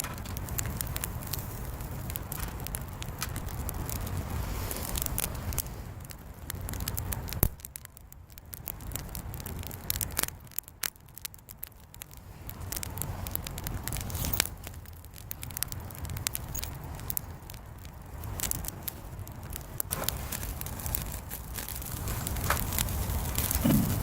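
Wood bonfire crackling and popping in irregular sharp snaps, over a steady low rumble.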